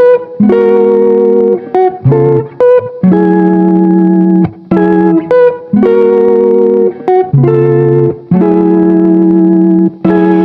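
Background music: plucked guitar chords in repeating phrases with brief gaps between them.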